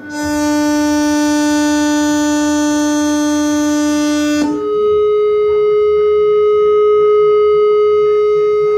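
Doorbell chime giving an odd, drawn-out sound: a low tone held for about four and a half seconds, then a higher tone that holds steady, both without the fading of a normal ding-dong.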